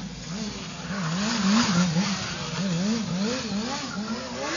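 Sport motorcycle engine revving up and down repeatedly under stunt riding, its pitch rising and falling about two to three times a second.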